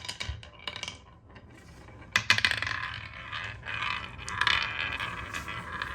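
Balls rolling and clattering down a wooden marble run, with sharp clicks as they knock against the track pieces. It is sparse at first and grows into a busier rattle about two seconds in.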